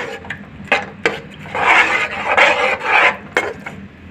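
Metal spatula scraping and stirring in a metal pan, working ghee into melted caramelised sugar: repeated scraping strokes with a few sharp clicks of metal on the pan.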